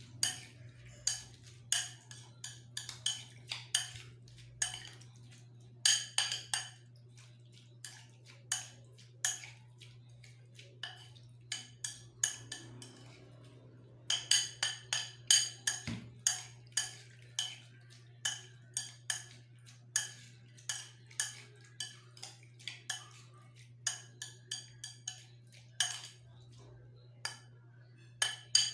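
A spoon clinking and scraping against a ceramic bowl while stirring raw fish and chopped onions in vinegar. The taps are irregular, sparser for a few seconds in the middle and quicker in the second half.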